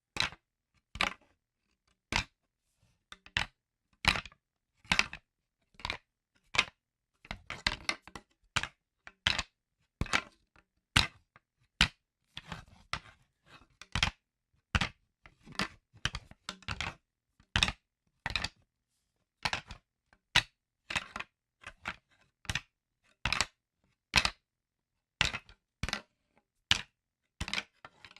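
Wooden sticks knocking together in sharp, dry clacks, mostly one or two a second at an uneven pace, with a few quicker flurries of several knocks.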